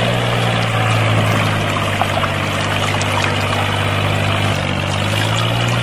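Two thin streams of water pouring from a miniature model pump's spouts into a shallow puddle, a continuous splashing hiss, over a steady low hum that drops slightly in pitch about four and a half seconds in.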